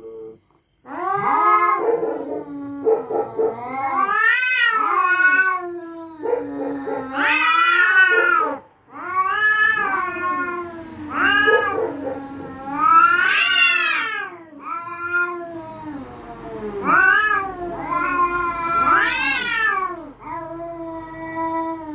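Cats caterwauling at each other in a territorial standoff: long, wavering yowls that rise and fall in pitch, one after another, at times two voices overlapping.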